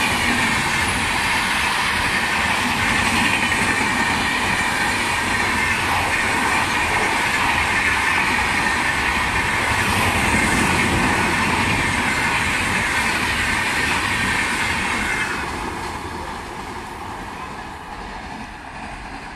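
An express train's LHB passenger coaches running through at speed: a loud, steady rush of wheels on rail with clickety-clack and a high steady whine over it. It fades away from about fifteen seconds in as the last coaches pass and the train recedes.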